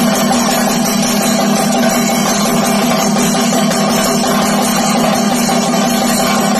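Thayambaka ensemble of chenda drums beaten with sticks in a fast, continuous roll, joined by ilathalam cymbals; the strokes run together into one loud, unbroken sound.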